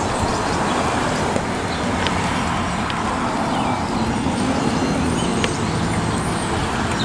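Steady traffic noise from cars passing on a city street.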